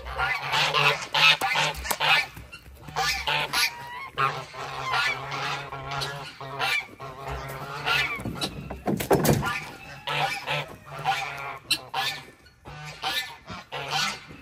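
Geese honking over and over, many calls overlapping, with a brief rush of noise about nine seconds in.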